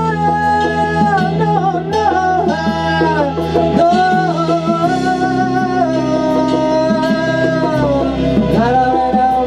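Male rock vocalist singing through a microphone, holding long notes and sliding between them, over the band's sustained bass and chords, which change every few seconds.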